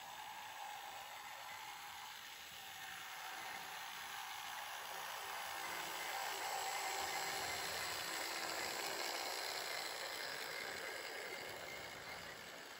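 Model train headed by two HAG Re 4/4 electric locomotives running past, a steady whir of the motors with the rattle of wheels on the track. It swells as the locomotives pass close, about six seconds in, then eases as the coaches roll by.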